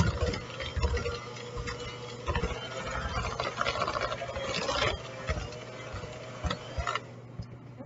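Electric hand mixer running, its beaters churning stiff cookie dough in a plastic bowl with scraping and knocking; it switches off about seven seconds in.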